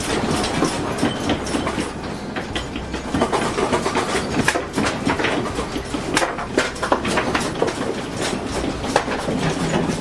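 A house rattling and creaking in earthquake shaking: windows, shelves and fittings clatter continuously over a steady low rumble.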